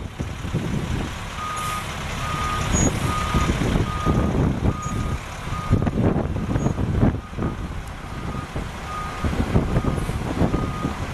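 Truck backup alarm beeping at a steady rate, a little more than once a second, starting about a second and a half in, over the running of a 1999 International 4900 dump truck's Navistar DT530 six-cylinder diesel as the truck reverses.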